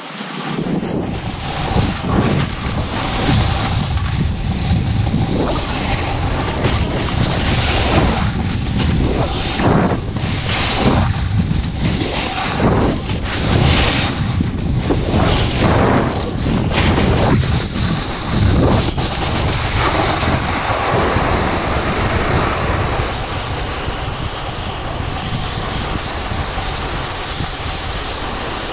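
Wind rushing over the camera microphone while skiing downhill, with skis scraping across the snow in regular turns about once a second, evening out into a steadier rush after about twenty seconds.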